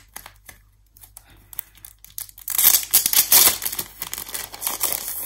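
Clear plastic wrapping on a book being opened: a few light taps and rustles, then from about halfway in, loud crinkling as the plastic is torn open and pulled off.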